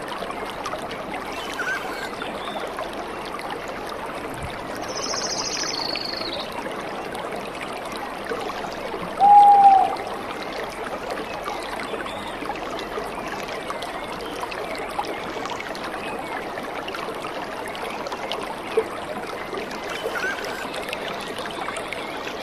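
Steady rushing noise like a running stream, with a few short chirps scattered through it and one louder short falling note about nine seconds in.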